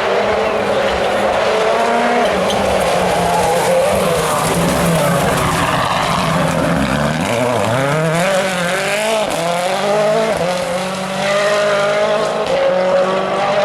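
A World Rally Car's turbocharged 1.6-litre four-cylinder engine at high revs, its pitch rising and falling with gear changes. About halfway the revs drop sharply and then climb again as the car slows and accelerates away.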